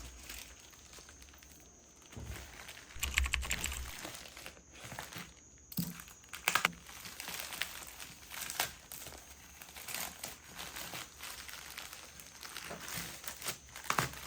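Handling noise: irregular crinkling and rustling with light taps and clicks.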